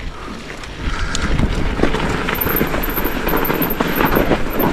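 Mountain bike rolling over a rough trail, with tyre noise and many small rattles and knocks from the bike, and wind on the camera microphone. The noise grows louder about a second in as the bike picks up speed.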